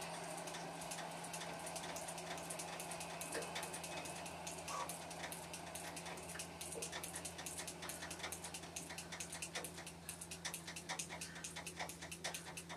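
Indoor spin bike pedalled flat out in a sprint: faint, rapid, light clicking and ticking over a steady low hum, the clicks coming thicker in the second half.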